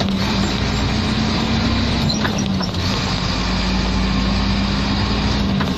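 Scania truck's open, straight-piped exhaust droning loudly at steady engine speed, its pitch dropping slightly about two seconds in.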